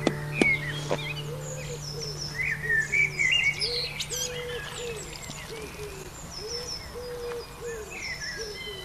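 Songbirds chirping, with a low cooing bird call repeated about twice a second through the second half. Music fades out at the start, and there are two sharp knocks in the first second.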